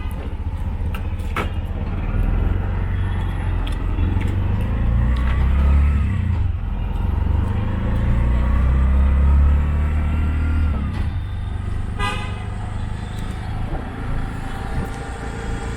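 Road traffic heard from inside a moving hired vehicle: a steady engine rumble, with a vehicle horn honking briefly about twelve seconds in.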